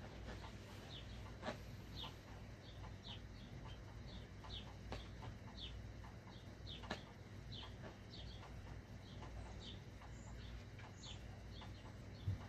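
Marker tip squeaking on the rubber of an inflated balloon while drawing: short, faint squeaks about twice a second, over a steady low hum.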